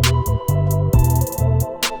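Background music with a steady beat: sustained synthesizer chords over a bass line and regular hi-hat ticks.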